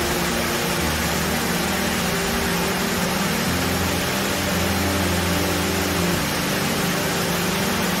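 Upper tier of a two-tiered mountain waterfall pouring into a rocky gorge: a steady, dense rush of falling water, recorded binaurally.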